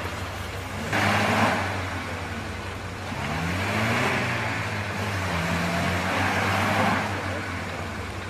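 Off-road 4x4's engine revving up and down under load as it churns through deep mud, the engine note rising and falling repeatedly. Its spinning wheels add a rushing, splashing noise that swells about a second in and again later.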